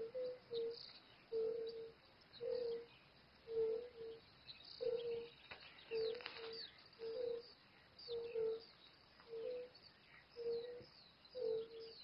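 A chorus of European fire-bellied toads calling from the pond: soft, even hooting notes, mostly in pairs, repeating about once a second. Small birds chirp faintly over it.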